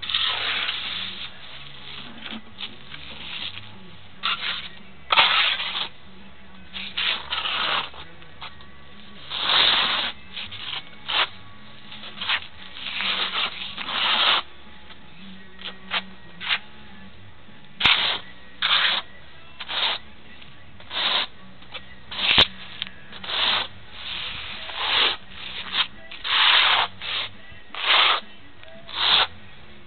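Steel notched trowel scraping across wet tile mortar on a concrete slab, spreading it flat and then combing ridges into it: a series of short scrapes that settle into about one a second in the second half, with two sharp taps along the way.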